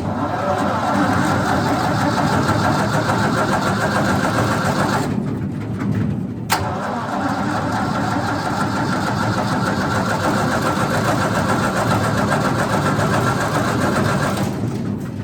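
Wood chipper's engine catches with a click and runs for about fourteen seconds, sagging briefly about five seconds in, then dies away near the end. The owner suspects fuel is not reaching the carburetor.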